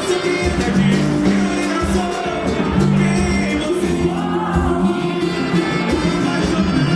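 Band music with singing over a steady bass line.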